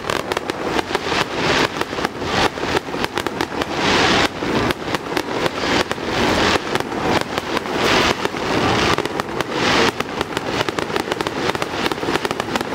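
Aerial fireworks going off in a dense, rapid barrage of bangs and crackles, with a brighter wash of crackling swelling up every second or two.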